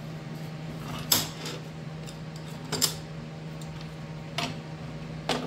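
Steel truck frames and hold-down clamps knocking against a perforated steel welding fixture table as they are handled: four sharp metal clanks, the loudest about a second in, over a steady low hum.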